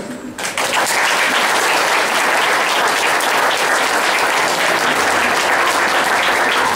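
Audience applauding steadily, the clapping starting about half a second in as the dance music ends.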